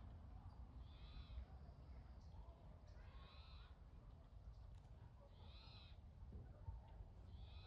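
A bird calling faintly four times, a short arched call about every two seconds, over a low steady rumble.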